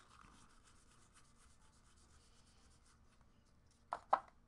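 Paper baseball cards being flipped through by hand: a faint rubbing rustle as card slides over card. Two short, sharp taps come near the end.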